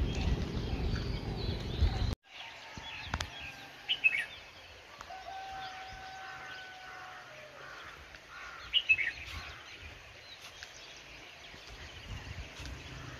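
Wild birds calling in the trees: short sharp chirps about four seconds in and again near nine seconds, with a long steady note in between. A low rumbling noise fills the first two seconds and cuts off suddenly.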